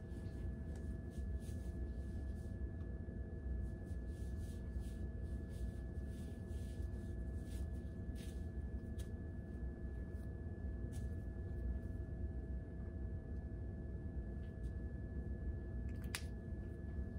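Steady low hum with two faint steady tones over it, and a few soft clicks and rustles as hands work through curled hair; the plainest click comes near the end.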